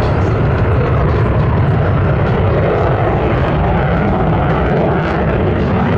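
F-35 fighter jet's single Pratt & Whitney F135 engine running in afterburner during a flyby: a loud, steady jet roar, heaviest in the low rumble.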